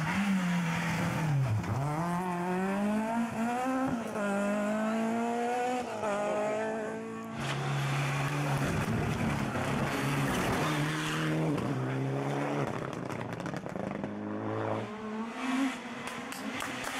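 Rally car engines at racing speed, each car in turn. A Peugeot 106's engine revs hard, its note climbing through the gears and dipping at each shift. After a cut about seven seconds in comes a Mitsubishi Lancer Evolution's engine, its note stepping up and down on and off the throttle, and near the end a Peugeot 106 engine again.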